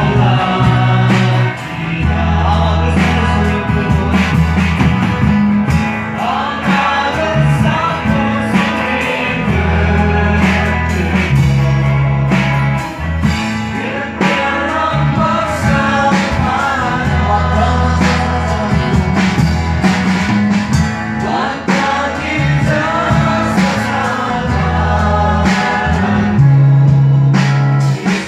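A Garo-language Christian worship song: voices singing over a band accompaniment with guitar, long held bass notes and drums.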